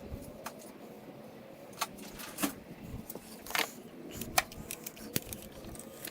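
Irregular metallic clicks and clinks of hand tools and metal parts being handled while working on a car engine, about half a dozen sharp taps spread across a few seconds.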